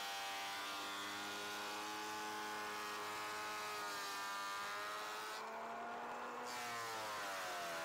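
Porter-Cable benchtop jointer running as boards are fed across its cutterhead: a steady motor whine whose pitch sags under load and recovers. The cutting hiss stops for about a second a little past the middle, between passes.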